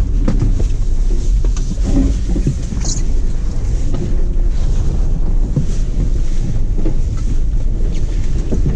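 Low, steady rumble of a Toyota off-road truck driving over frozen grass, with wind buffeting the microphone.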